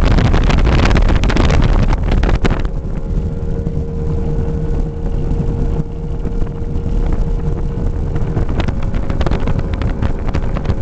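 Ride aboard a 21-foot Liberator tunnel-hull speedboat with a Mercury 300XS outboard: engine noise with heavy wind and water rush at speed, which cuts off sharply about two and a half seconds in, leaving a quieter, steadier engine note with a held hum.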